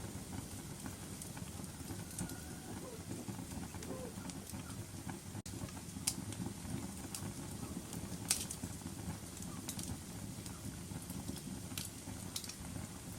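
Wood fire burning in a fireplace: a steady low rumble of flames with scattered sharp crackling pops, the loudest about eight seconds in. The sound cuts out for an instant about halfway through.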